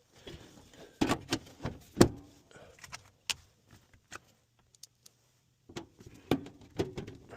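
Scattered metal knocks and clinks from furnace parts being handled during reassembly, the loudest knock about two seconds in, with a quiet spell in the middle.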